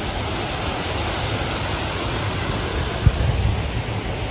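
Steady rush of moving water, an even hiss with no break, with a brief low rumble about three seconds in.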